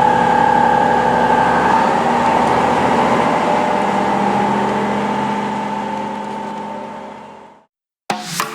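Diesel railcar running steadily, its noise fading out to silence near the end. A short sharp whoosh follows just before music starts.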